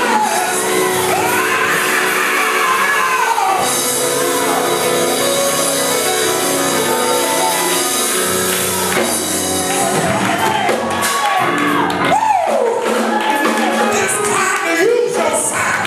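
Gospel praise music in a church hall: singing and shouting voices with instruments and tambourine.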